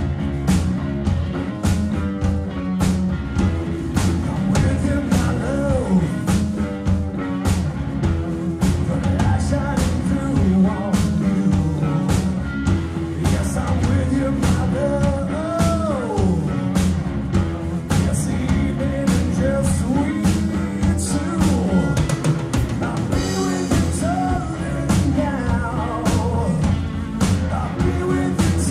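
Live rock trio playing: electric guitar, bass guitar and a drum kit keeping a steady beat, with a male lead vocal sung over it.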